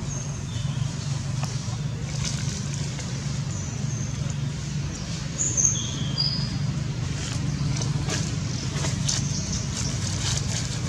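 Outdoor ambience: a steady low hum, with a few short, high bird chirps in the first half and faint scattered clicks.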